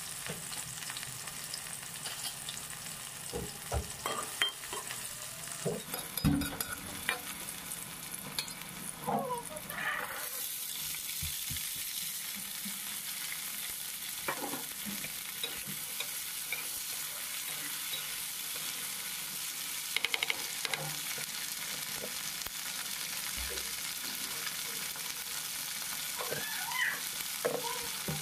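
Onion and green chillies sizzling in hot oil in a metal kadhai while a spoon stirs, scraping and knocking against the pan now and then. About ten seconds in the sizzle becomes a steadier, brighter hiss with fewer knocks.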